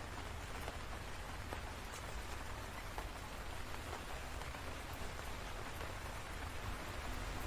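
Steady rain falling, with scattered individual drops ticking and a steady low rumble underneath.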